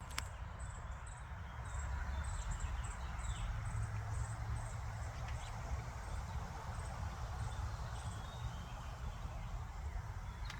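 Steady low background rumble with faint, short, high-pitched animal chirps repeating irregularly over it.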